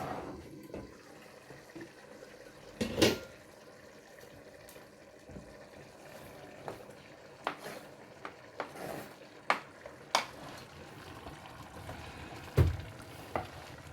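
A spoon stirring food in a cooking pot, with scattered sharp knocks of the utensil against the pot; the loudest knock comes about three seconds in and another near the end.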